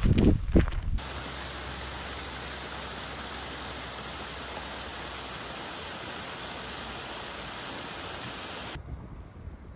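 A second of footsteps and trekking-pole taps on a gravel path, then a steady, even rush of water at a stone canal lock, which stops suddenly shortly before the end.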